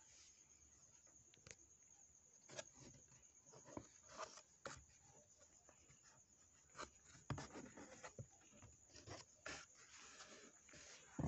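Faint rubbing and scraping of a cardboard box being opened by hand, with scattered soft rustles and knocks and one louder thump near the end.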